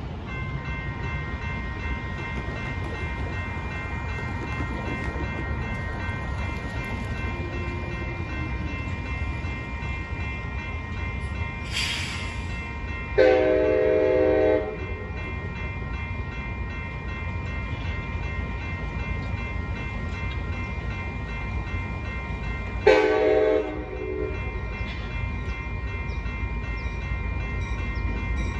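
Railroad crossing bells ringing steadily as the crossing activates and its gates come down, while an approaching Amtrak train sounds two horn blasts, the first longer than the second, over a low rumble.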